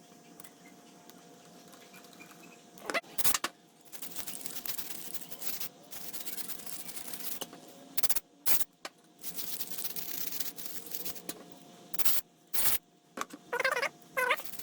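An aerosol can of carburetor cleaner hissing in spurts into a small engine's carburetor, broken by sharp clicks and knocks of metal parts being handled.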